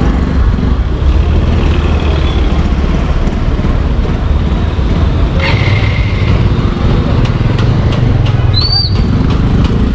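Motorcycle engine running steadily as the bike moves off through street traffic. A short horn toot comes about five and a half seconds in.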